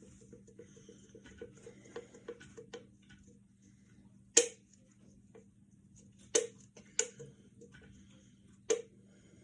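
A person gulping down a canned energy drink, each swallow a small click, coming quickly about three to four a second for the first few seconds. Then four sharp knocks, the first the loudest, spread over the rest.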